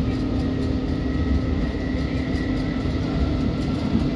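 Passenger train running along the line, heard from inside the carriage: a steady low rumble with a constant hum.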